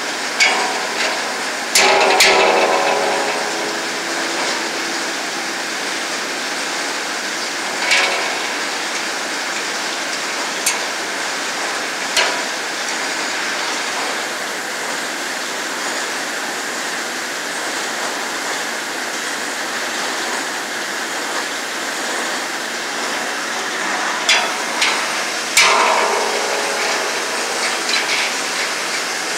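Steel wrench and saw bits knocking against a large inserted-tooth circular sawmill blade during a bit change: a few sharp metal knocks, two of which, about two seconds in and near the end, leave the steel blade ringing briefly. Under them runs a steady rushing noise.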